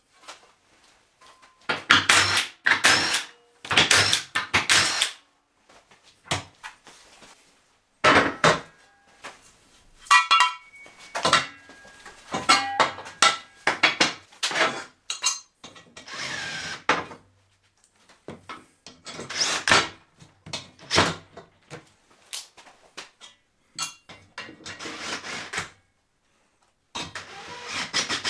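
Steel workshop handling: square steel tubing and sheet-steel parts clanking, knocking and scraping on a steel welding table, with several louder bursts of noise up to a second long and a few metallic rings about ten seconds in.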